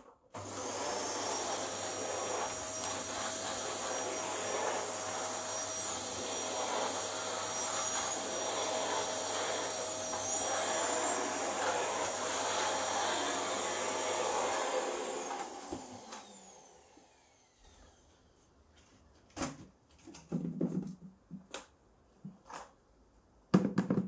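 Canister vacuum cleaner switched on, running steadily with a high whine as it sucks fine dust through a paint-bucket cyclone separator, then switched off about fifteen seconds in and spinning down with a falling whine. After that come a few knocks and clicks of the plastic bucket lid being handled, the loudest near the end.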